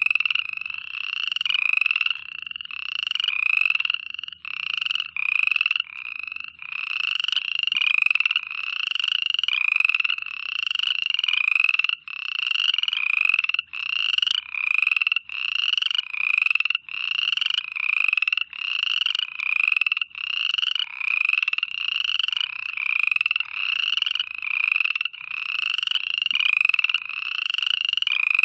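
A chorus of frogs calling at night. High-pitched calls come one after another, about one or two a second, and overlap in a continuous din.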